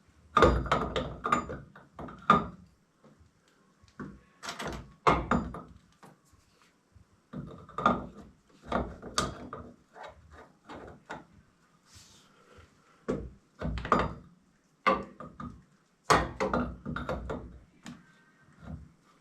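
Irregular knocks, clunks and rattles come in clusters, like tools and parts being handled and set down during plumbing work.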